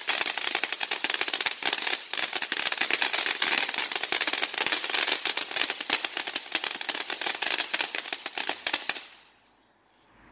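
Consumer firework crackling: a rapid, dense stream of small sharp pops that keeps up for about nine seconds and then cuts off suddenly.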